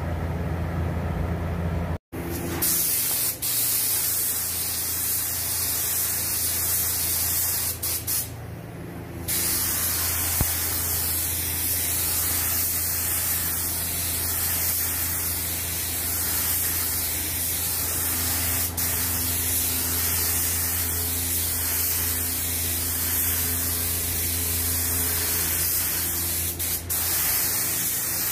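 Compressed-air gravity-feed spray gun hissing steadily as it sprays automotive lacquer primer, with a steady low hum underneath. The hiss starts about two seconds in and breaks off briefly twice where the trigger is let off.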